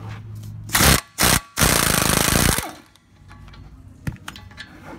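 Impact wrench hammering on the bottom brake caliper bolt: two short bursts, then a run of about a second, breaking the bolt loose.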